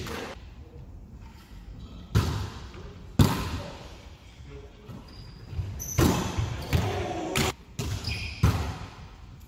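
A volleyball being struck and hitting a hardwood gym floor: five or so sharp smacks, each echoing through the hall.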